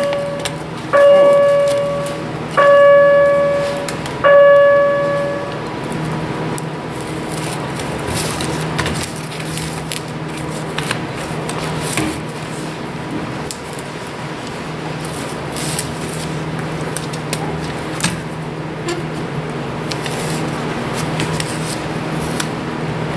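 Four ringing bell-like chimes, all on the same note and about a second and a half apart, each fading out, over the first several seconds. After them a steady hum, with scattered clicks and clacks from plastic quick-release bar clamps being squeezed and set around a 3D-printed two-part mold block.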